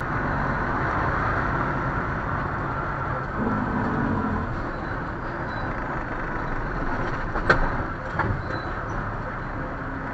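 Truck cab interior noise: the engine and road noise run as a steady rumble while the truck rolls along in traffic. Two sharp clicks or knocks come about two-thirds of the way through.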